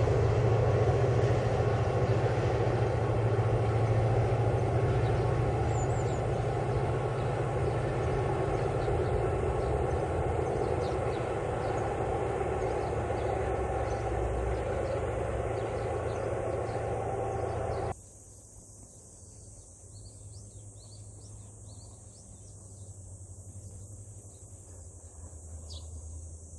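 Mugunghwa-ho passenger train running along an elevated concrete viaduct, a steady low rumble that slowly fades as it moves away. About two-thirds of the way through the sound cuts off suddenly to a quiet background of insects and birds chirping.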